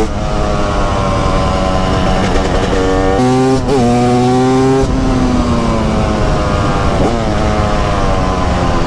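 Engine of a TM SMR 300 two-stroke single-cylinder supermoto running under way. Its note slowly falls, jumps up sharply about three seconds in and holds, then sags and rises again near the end.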